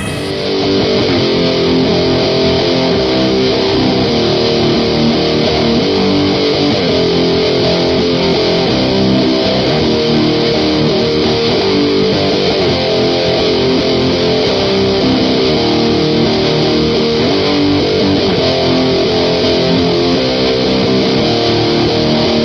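Background music: distorted electric guitar with bass and a steady strummed rhythm.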